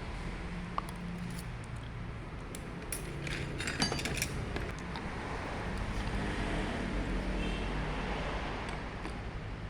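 Small metal parts of a diesel injection pump clinking and clicking as they are handled during disassembly, with a cluster of sharp clicks about three to four seconds in, over a steady low hum.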